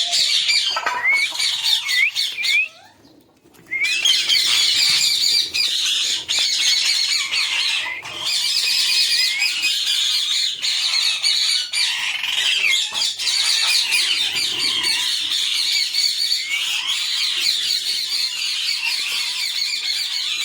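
A crowd of small caged parrots chattering and squawking at once: a dense, shrill, overlapping flock chorus, with a brief lull about three seconds in.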